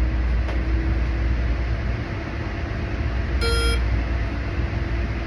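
Shot-timer app's start beep, a single short electronic tone of under half a second about three and a half seconds in, heard over a steady low rumble.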